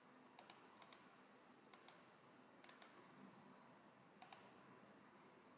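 Computer mouse buttons clicking faintly: five quick press-and-release pairs, spaced out over about four seconds, against a quiet room hiss.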